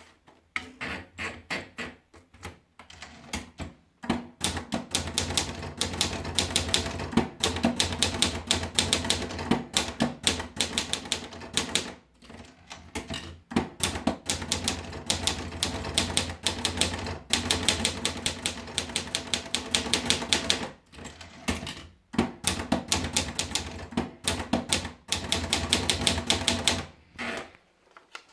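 Olivetti Studio 45 manual portable typewriter being typed on: fast runs of sharp keystrokes broken by short pauses, stopping shortly before the end.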